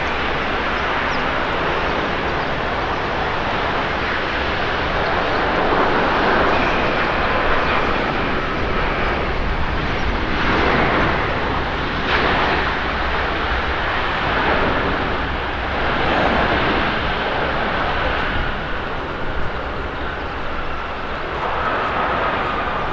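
Airbus A350 jet airliner's engines and airframe as it touches down and rolls out along the runway: a steady jet rush that swells and eases several times, with a faint whine over it.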